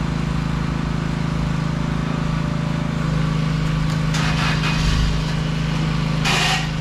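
Forklift engine idling with a steady low hum. Short bursts of hiss come about four seconds in and again near the end.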